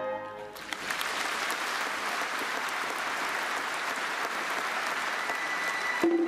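A large audience breaks into loud, sustained applause that rings through the hall, just after a band's final held chord ends about half a second in. Near the end a new held note from the band starts under the clapping.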